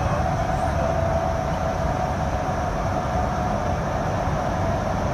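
Steady road noise of a car travelling at about 80 km/h through a long road tunnel, heard inside the cabin: a low rumble of tyres and engine with a steady hum on top.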